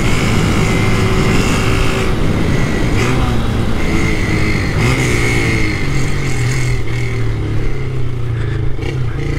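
Small moped engine running while riding, its pitch rising and falling with the throttle.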